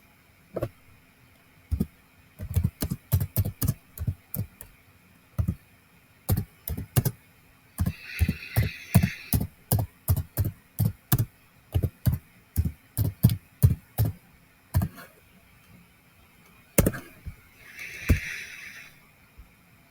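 Typing on a computer keyboard: runs of quick key clicks with short pauses between them. Twice, a brief soft rushing noise sounds alongside the keystrokes.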